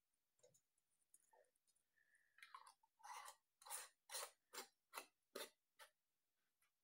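Metal screw band being twisted down onto the threads of a glass canning jar: a run of short scraping rasps, about two a second, starting about two and a half seconds in, with a few faint clicks before as the band is set on.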